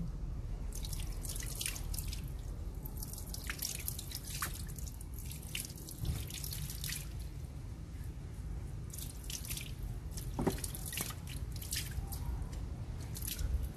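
Water dripping and splashing in small, irregular drops over a steady low rumble, as when a puppy is being washed.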